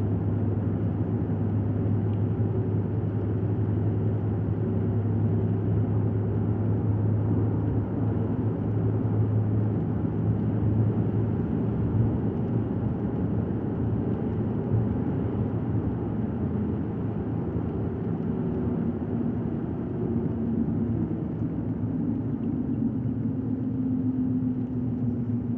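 Vehicle engine running steadily while driving on a muddy dirt road, a low hum that eases off about halfway through, with a higher drone coming in near the end.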